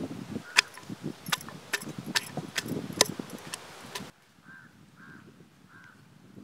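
Sharp, irregular clicks and knocks in a stone mortar as garlic cloves and ginger are dropped in and worked with a wooden pestle, over low rustling. About four seconds in it cuts to quiet, where a bird calls three short times.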